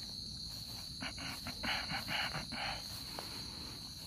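Steady high-pitched drone of an insect chorus, with a run of short scuffing noises between about one and three seconds in.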